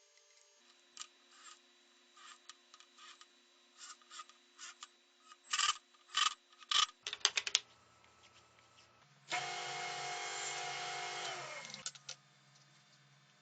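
A series of short scraping, rubbing strokes on wood, several quicker and louder ones in a cluster, then a small power tool runs steadily for about two and a half seconds and stops.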